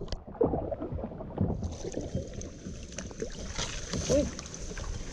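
Kayak on a river: paddle strokes in the water with irregular knocks against the hull. A steady high whine joins about a second and a half in.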